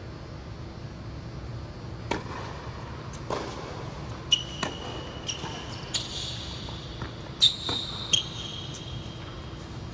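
Tennis being played on an indoor hard court: a series of sharp knocks from the ball being struck and bouncing, the loudest past the middle. Short high squeaks of court shoes on the surface come and go from about four seconds in.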